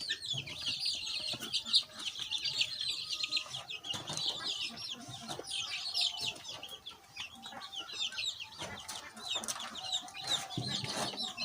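A brood of 20-day-old desi chicks peeping continuously, with many short, high, downward-sliding cheeps overlapping. A few faint clicks sound among them.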